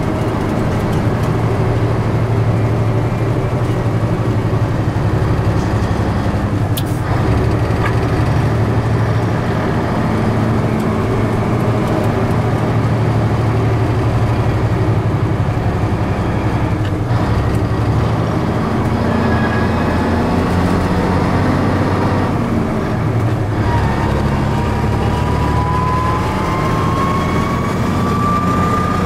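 Ford LTL9000 semi truck's diesel engine running under load, heard from inside the cab as a steady drone. The engine note shifts three times as gears change, and a faint rising whine comes in near the end.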